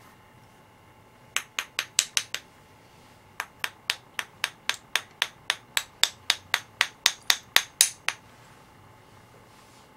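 Paint spattering: a stiff, paint-loaded brush is drawn again and again across a handheld spatter tool, giving a sharp click with each stroke. There is a quick run of six clicks, a short pause, then about twenty more at about four a second, growing louder toward the end.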